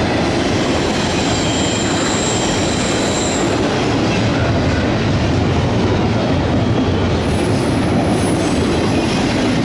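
Double-stack intermodal freight train's well cars rolling past close by: a loud, steady rumble of steel wheels on rail, with a thin high wheel squeal coming and going.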